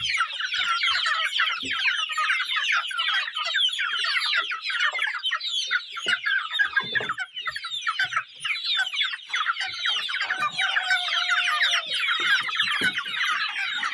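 A flock of two-month-old Sasso chickens peeping and clucking together, many high calls overlapping without a break. One longer, lower call stands out about ten seconds in.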